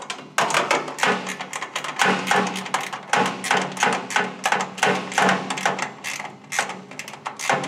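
Ratchet wrench clicking in quick strokes, several a second, as it runs a nut down onto a screw holding a sheet-steel mailbox top.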